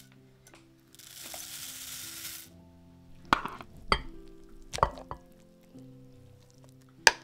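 A metal spoon knocking and scraping against a saucepan as cooked oatmeal is spooned into a bowl, in four sharp knocks spread over the second half, over background music. A hiss runs from about one to two and a half seconds in.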